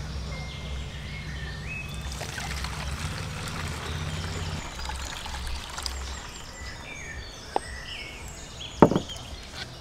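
Liquid poured from a glass bowl through a plastic funnel, a steady trickling pour. Near the end there is a small click and then a single sharp knock, the loudest sound.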